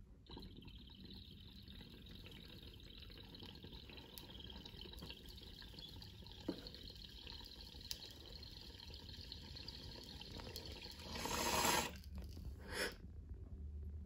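Water in a glass beaker bong bubbling steadily through one long inhale. About eleven seconds in comes a louder, brief rush of air as the bowl is pulled to clear the chamber, then a short second burst.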